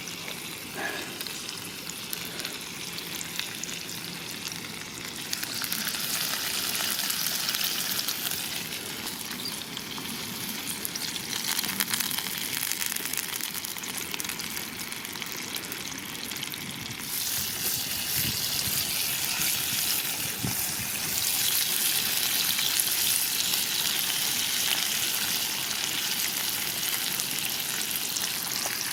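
Bacon-wrapped, cheese-filled pepper halves sizzling in a frying pan over a campfire. The sizzle grows louder about five seconds in, and again at around seventeen seconds.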